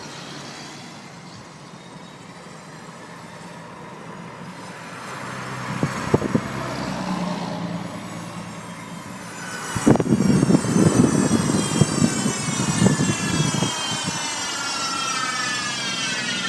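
Chevy Volt drive unit whining with several high tones that slide down in pitch through the second half, over road and drive rumble that gets louder about ten seconds in. The whine comes from a failing plastic 'B' bearing between the electric motor and the gas engine.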